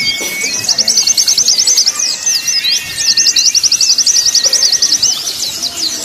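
White-eyes (pleci) singing in a fast chatter of rapid repeated high notes, about ten a second, in two long runs with a short break between them, over thin drawn-out whistled calls. This is a mix of several white-eyes calling together, played to stimulate a caged pleci into song.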